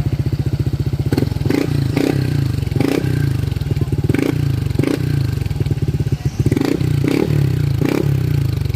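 Honda PCX 160 scooter's single-cylinder engine running through an aftermarket MT8 Power Pipe exhaust with a black stainless tip. It idles at first, then from about a second in it is blipped over and over with short throttle revs.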